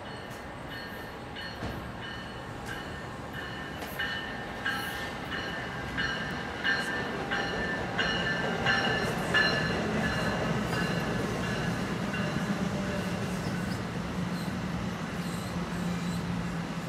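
NJ Transit commuter train arriving at a station, its locomotive bell ringing steadily about three times every two seconds, stopping about ten seconds in. A steady low hum from the train carries on under and after the bell as the train rolls in.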